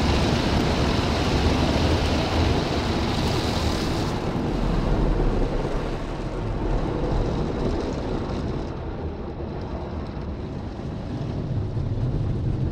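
Rotating foam brushes of a Tammermatic T700 rollover car wash scrubbing the car's windows and body amid water spray, heard from inside the cabin as a loud, steady wash noise that is hissier for the first few seconds.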